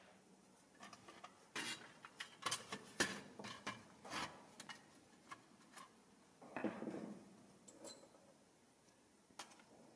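A screwdriver clinking and scraping on the thin stamped-steel body of an old toy plane while it works at the tabs that hold the plane together: a run of sharp metallic clicks, then a short scrape about six and a half seconds in, and only a few faint clicks after.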